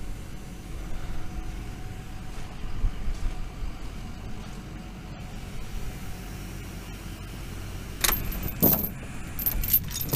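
Steady low wind rumble on the microphone, then from about eight seconds in, a steel tie-down chain rattling and clanking against the trailer's wooden deck in several sharp bursts, the loudest at the end.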